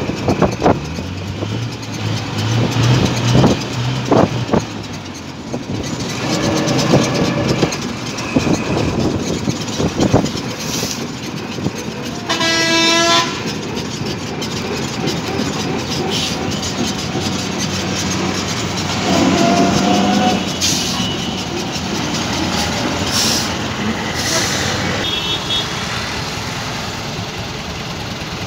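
Road traffic heard from inside a moving vehicle: steady engine and road noise, with vehicle horns sounding several times, the loudest a buzzy blast about twelve seconds in. A few sharp knocks come in the first few seconds.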